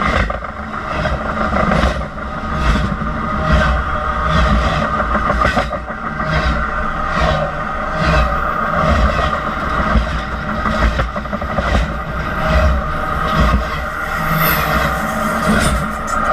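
Union Pacific train rolling directly over the microphone: a loud steady rumble, with sharp clacks of wheels hitting the rails a little under a second apart and a steady metallic ringing of steel wheels on rail.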